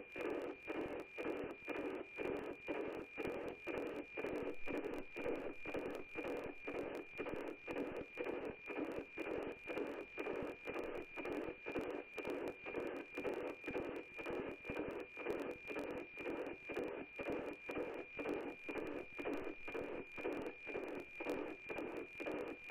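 NOAA-18 weather satellite's APT signal on 137.9 MHz, received and demodulated by an Icom IC-9100: a steady high-pitched tone with a regular tick-tock beat about twice a second, each beat one scan line of the weather image being sent down.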